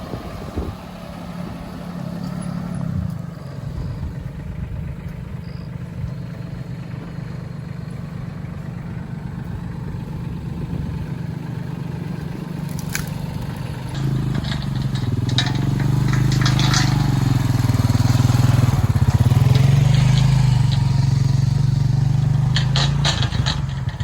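A vehicle engine running steadily, then louder from about fourteen seconds in, its pitch rising and falling as it works. A few short cracks or clicks sound over it.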